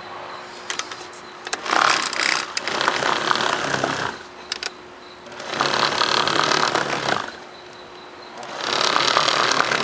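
Handheld orbital car polisher running with a bonnet pad, buffing dried polishing compound off a painted bumper. Its steady motor hum grows louder in three stretches of about two seconds each.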